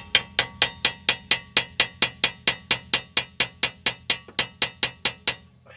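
Hammer rapidly tapping a screwdriver wedged between a wheel hub bearing assembly and the brake guard, to work the stuck hub loose: an even run of ringing metallic strikes, about four or five a second, stopping shortly before the end.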